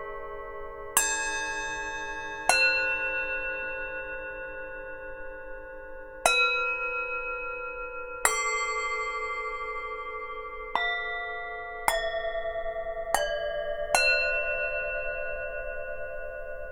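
Tibetan singing bowls struck about eight times at uneven intervals, each strike ringing on with several overtones at a different pitch, the tones overlapping and slowly fading.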